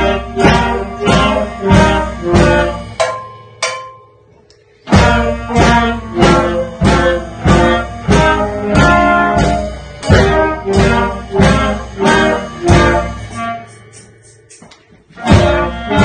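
Music of plucked, pitched notes played in a steady rhythm, pausing briefly about four seconds in and again near the end.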